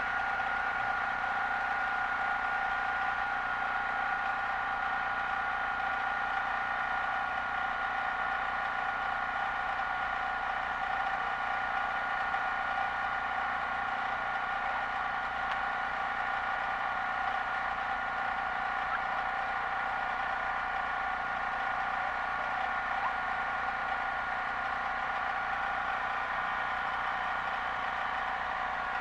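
A steady, unchanging machine hum with two constant high-pitched tones running through it.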